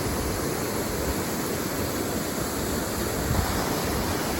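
Steady rushing of a waterfall pouring into a pool, with an unsteady low rumble underneath.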